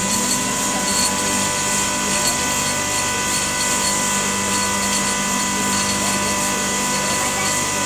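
A steady mechanical hum with a constant whine, unchanging in level.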